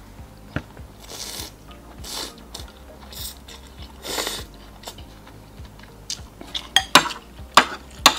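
Rice noodles in laksa broth slurped in several short pulls, then a spoon and fork clinking and scraping against a glass bowl, the sharpest clinks in the last couple of seconds.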